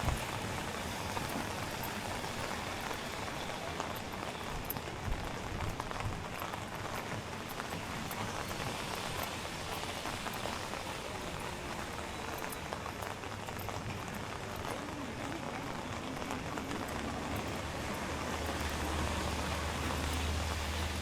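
Steady rain falling on a city street, an even hiss with scattered drop ticks. A low steady hum comes in about three-quarters of the way through.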